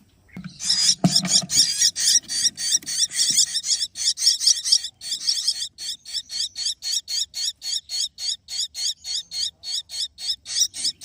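Crested myna nestlings giving rapid, repeated high chirping begging calls, packed closely at first and then settling to about five a second. There is a soft knock about a second in.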